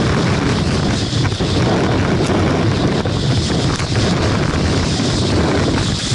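Loud, steady wind rush buffeting the camera microphone during a fast ski descent, mixed with skis scraping and hissing over the packed snow.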